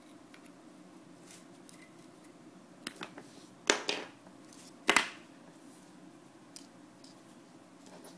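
Small spring snips working on fishing line: a few faint clicks about three seconds in, then two sharp snips a little over a second apart.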